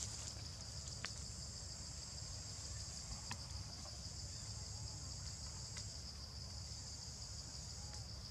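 Steady high-pitched chorus of insects such as crickets or cicadas, over a low rumble, with a few faint ticks.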